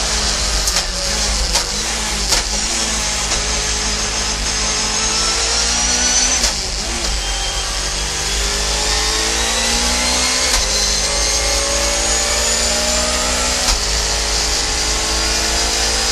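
Audi A4 Quattro Super Touring's two-litre naturally aspirated four-cylinder racing engine running hard at high revs, its pitch climbing steadily over several seconds at a time, with a few sharp cracks.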